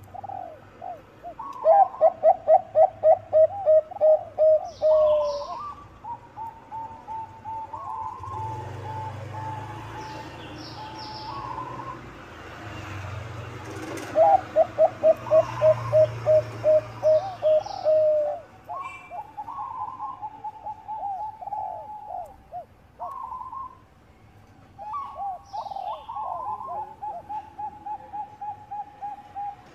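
Zebra doves of the Bangkok song breed (perkutut bangkok) cooing: two loud runs of quick rolling notes, one early and one near the middle, with softer, steadier cooing between and after them. Faint high chirps of small birds come through now and then.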